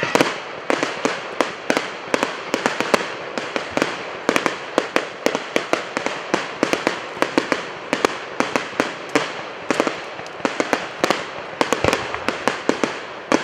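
Fireworks display going off in a rapid, unbroken barrage: several sharp bangs a second with crackling between them.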